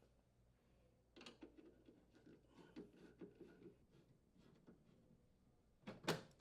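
Faint, quick clicking and scraping of a Phillips screwdriver unthreading screws from a metal oven door panel, about four or five small clicks a second, followed near the end by one sharper click.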